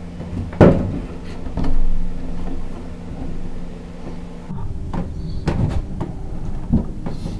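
Hands and hand tools working wires at an electrical panel and wire duct: a sharp knock about half a second in, a rustle of handling, then scattered clicks and rattles, over a steady low hum.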